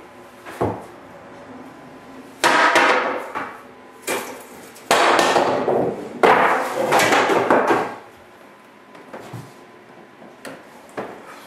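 Brooms clattering in a closet and falling out onto a wooden plank floor, with the louvered wooden closet door knocking as it opens. There are two long bursts of banging and scraping about two and five seconds in, with single knocks before them and a few lighter knocks near the end.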